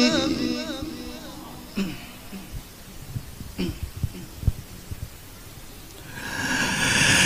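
A male Quran reciter's long, wavering sung note fades away through the microphone's echo in the first second. A pause follows with a few soft knocks and breaths on the microphone, and then a long breath is drawn in audibly through the microphone before the next phrase.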